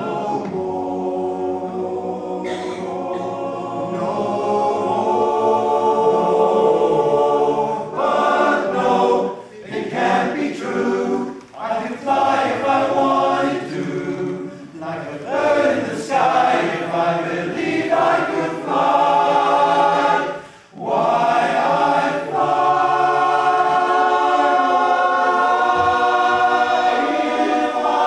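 Male barbershop chorus singing a cappella in close harmony, with chords that shift and short breaks for breath. About three-quarters of the way through the singing stops briefly, then comes back on a long held chord.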